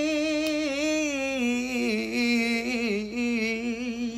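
A man singing a long wordless held note with vibrato. About a second and a half in, the note steps down in pitch and wavers through a short run before it ends near the close.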